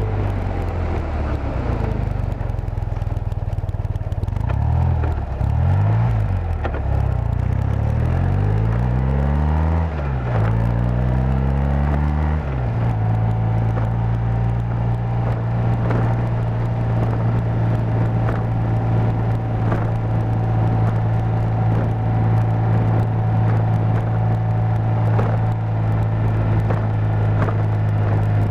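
BMW airhead motorcycle's R80 air-cooled boxer twin running on the move. The engine note rises and falls several times in the first part, then settles to a steady cruising note from about halfway on.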